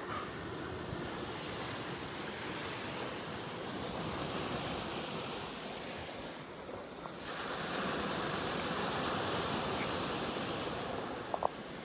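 Small surf breaking and washing up the beach, with wind on the microphone; the rush gets louder a little past halfway. A couple of short clicks near the end.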